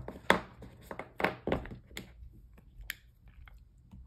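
Small paper items and sticker packs being handled, shuffled and set down on a desk: a series of sharp taps and crinkly clicks, most of them in the first three seconds, fainter after.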